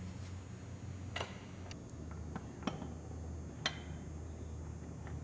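A handful of sharp metallic clicks and taps at irregular intervals from metal engine parts being handled at an open tractor engine block, the loudest a little past halfway. A steady low hum runs underneath.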